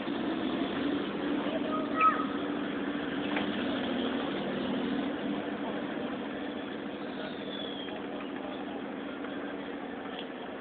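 A vehicle engine running steadily, with one short knock about two seconds in.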